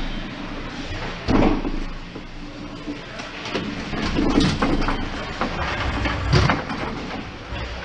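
Ice hockey players skating up to the net in an echoing indoor rink, with scattered knocks from sticks and pads and shouting voices; three louder bursts rise above the rumble.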